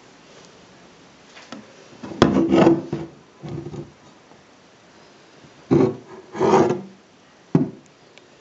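Handling of an antique Singer sewing machine in its bentwood case: five short rubbing, scraping strokes of wood, the loudest about two seconds in and the last one brief.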